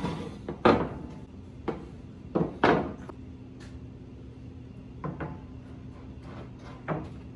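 Metal bed panels of a Shapeoko XXL CNC being handled and set down on a plywood tabletop, then an MDF board laid across them: a series of sharp knocks and clatters. The loudest come in the first three seconds, and they sit over a steady low hum.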